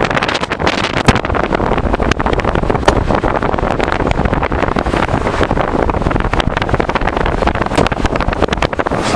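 Heavy wind buffeting the microphone of a camera held out of an open car window at driving speed, over the car's road noise, in irregular rough gusts.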